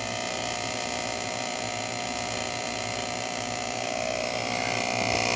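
De'Longhi espresso machine's newly replaced vibratory pump buzzing steadily as it pushes water through the group for a test shot of espresso, growing a little louder near the end.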